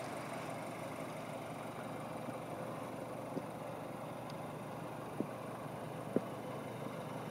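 Skoda Superb's TSI petrol engine idling steadily, heard from outside the car, with the light ticking chatter typical of a direct-injection engine. Two faint clicks come in the second half.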